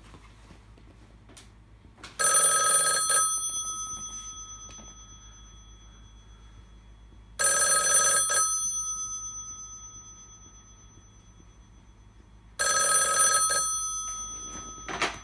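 Western Electric model 500 rotary phone's electromechanical bell ringer ringing three times, about five seconds apart: each ring is loud for about a second, then the gongs ring on and fade over several seconds. With its bias spring moved to the low-bias position, the ringer now rings properly on the lower ringing voltage of a Partner phone system, which sends an intercom ring. A short knock comes near the end.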